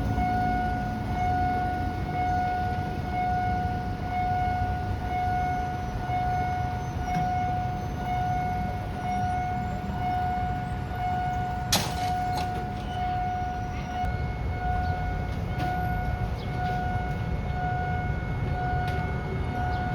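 Railway level-crossing warning alarm sounding a repeated electronic tone, about one pulse a second, over a low rumble. A sharp click about twelve seconds in.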